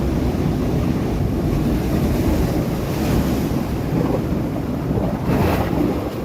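Sea waves breaking on rocks: a steady low rumble of surf, with a brighter splash of spray about three seconds in and a bigger one near the end.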